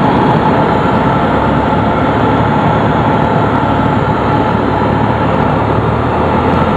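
Light single-engine propeller plane's engine and propeller running steadily, heard from inside the cockpit as a loud, even drone.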